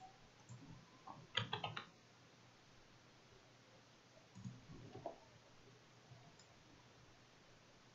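Clicking of a computer's keys and mouse buttons: a quick run of several sharp clicks about one and a half seconds in, and a softer group around five seconds.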